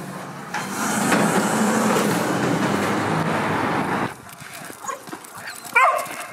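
Street traffic noise with a vehicle rushing past for about three and a half seconds, then quieter, with one short sharp call near the end.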